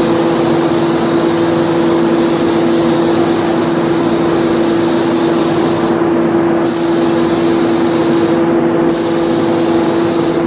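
Compressed-air spray gun hissing as it sprays paint onto a car door, over a steady hum. The hiss briefly drops out twice in the second half, as the trigger is let go.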